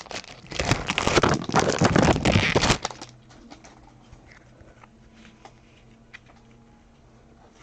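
Trading-card pack wrapper being torn open and crinkled, a dense crackle for about three seconds, then only faint light handling ticks.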